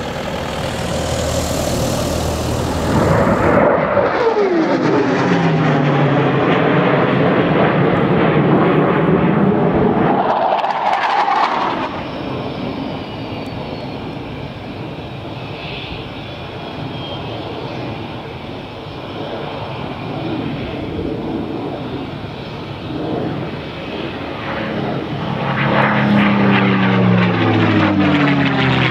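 Twin jet engines of an F/A-18 fighter climbing away after takeoff, the pitch falling steeply as it passes. A quieter, steadier aircraft engine drone follows. Near the end a P-51 Mustang's V-12 piston engine passes overhead, its stacked engine tones dropping in pitch.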